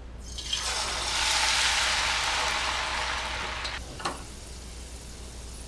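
Batch of shredded potato sticks dropped into hot oil and sizzling: the frying hiss swells within the first second, then dies down after about three seconds, with a short knock soon after.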